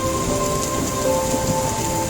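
Steady rain falling, with soft sustained music tones held underneath.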